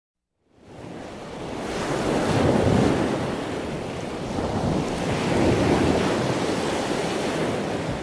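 Surf on a beach: a steady rush of waves that fades in and swells twice as the waves break and wash in.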